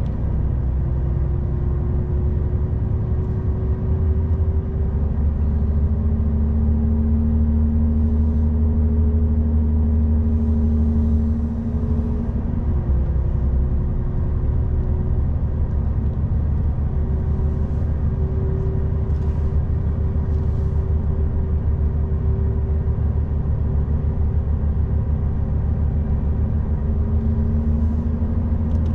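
Articulated truck's diesel engine running under way with a steady low rumble. Its note slowly rises, then drops briefly about twelve seconds in.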